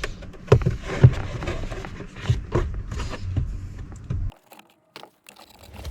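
Irregular plastic clicks, taps and rustling as a cabin air filter is worked into its housing behind a car's glove box, cutting off abruptly about four seconds in.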